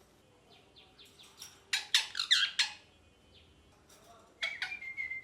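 Pet ringneck parrot calling: a quick burst of sharp, loud chirps and squawks about two seconds in, then a shorter run of calls ending in a held whistle-like note near the end.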